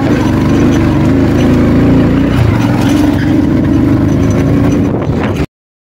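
Motorcycle engine running steadily under load on a rough off-road climb with three riders aboard, a dense low drone. It cuts off to dead silence for about half a second near the end.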